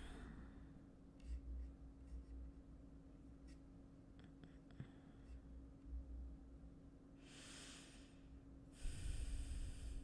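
A man breathing close to the microphone: two long breaths of about a second each near the end, after a few faint clicks at a computer earlier on, over a faint steady hum.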